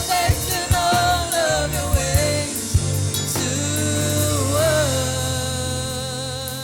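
Gospel music: a singer's voice drawing out and bending notes over a band with steady bass and drum hits, settling into a long held note in the last couple of seconds.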